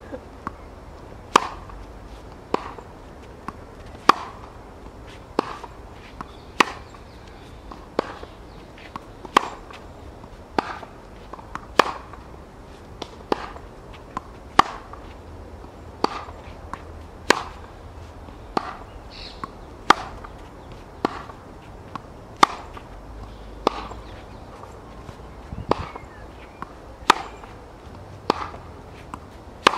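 Tennis ball struck by rackets in a steady baseline rally on a hard court: sharp pops about every second and a half, alternating louder and softer.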